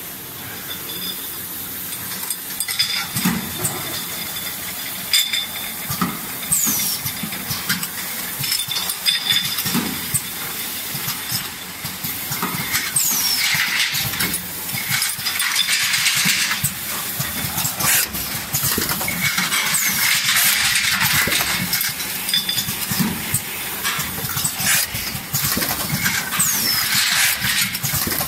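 Automatic sauce filling and vacuum capping machine running: repeated air hisses from its pneumatic cylinders, clicking and clatter from the mechanism and glass jars, and a short high falling squeal about every six or seven seconds.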